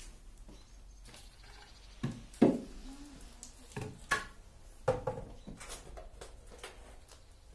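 A series of irregular knocks and thumps, about seven in all. The loudest comes about two and a half seconds in and is followed by a short low ring.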